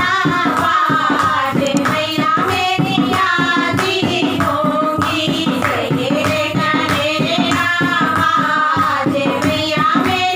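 A group of women singing a Hindi devotional folk song to the goddess Durga (a devi geet bhajan) together, clapping their hands along with the song.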